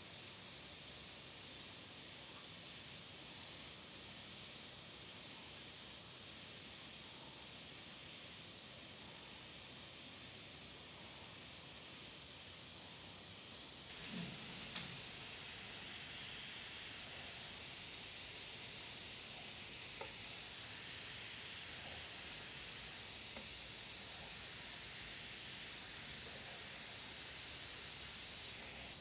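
Richpen 213 airbrush with a 0.3 mm nozzle hissing steadily as air and paint spray from it, getting louder and brighter about halfway through.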